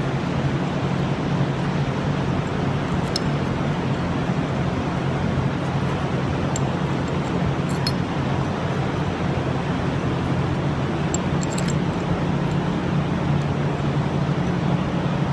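Steady background hum and noise of a workshop, with a few faint light clicks scattered through it.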